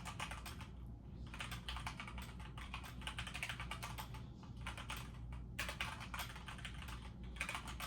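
Fast, continuous typing on a computer keyboard: a dense run of key clicks with a few short breaks, from someone typing at speed in a typing test.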